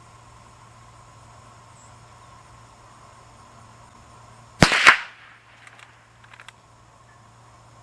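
A single shot from a Henry lever-action .22 LR rifle firing CCI Mini Mag ammunition: one sharp crack about four and a half seconds in, with a quick echo, followed by a few faint clicks.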